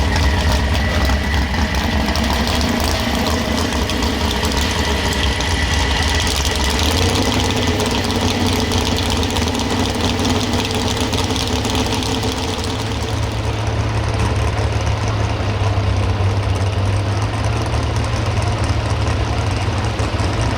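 Pro stock 4x4 pulling truck's engine running hard and steady under load. Its deep note steps up in pitch about a third of the way in and again past halfway.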